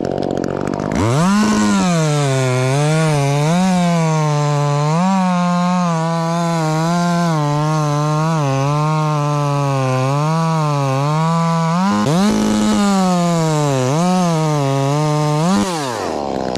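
Chainsaw at full throttle cutting through wood. The engine note dips over and over as the chain bites and recovers, then falls away near the end as the throttle is released.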